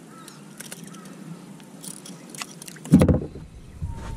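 Light metallic clicks of fishing pliers working a hook free from a fish's mouth, then a loud thump on the boat deck about three seconds in, followed by a low rumble.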